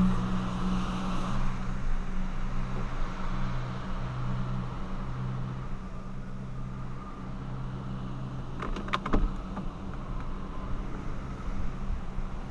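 A 2008 Volkswagen Polo sedan's 1.6 engine idling steadily, heard from inside the cabin, with a short cluster of sharp clicks or knocks about nine seconds in.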